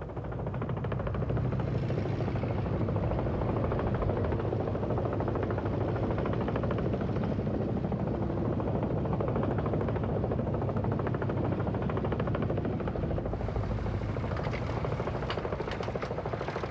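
Boeing CH-47A Chinook helicopter running on the ground with its tandem rotors turning: a steady, rapid blade chop over engine rumble.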